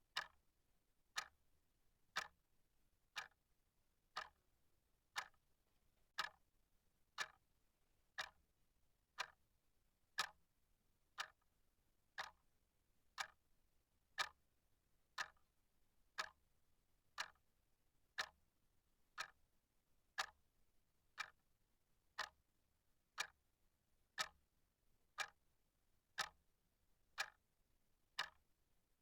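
Clock ticking steadily, one sharp tick about every second, against near silence.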